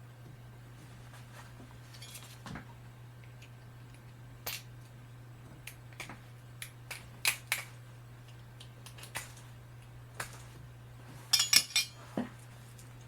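Small metal tools clicking and tapping against each other and the bench at irregular moments, with a quick cluster of sharper clinks near the end, over a steady low hum.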